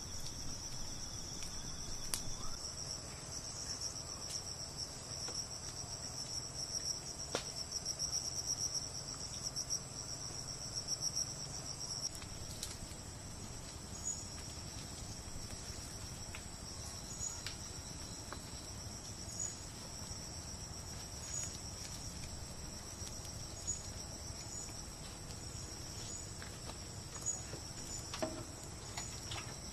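Crickets and other insects trilling in a steady, high-pitched chorus. About twelve seconds in the chorus changes: one trill drops away, and a high chirp repeating every second or two takes over. Occasional soft crackles come from a campfire.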